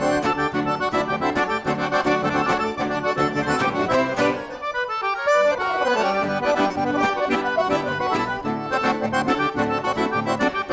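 Accordion playing the instrumental introduction to a gaúcho song over a steady rhythmic accompaniment, with a brief break in the texture about halfway through.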